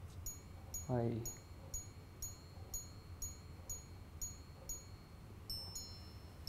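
Minute repeater wristwatch striking the time on its gongs: a faint, evenly paced series of about ten high chimes, about two a second, then a pair of different notes near the end as the chiming sequence moves on.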